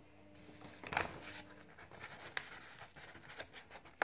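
Folded A4 paper aeroplane being handled and rubbed against a tabletop: irregular soft rustling and scratchy brushing of paper, with a sharper rustle about a second in.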